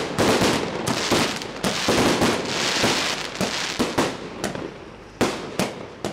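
Chinese firecrackers going off in a dense, rapid run of cracks. About four seconds in they thin to a few separate bangs.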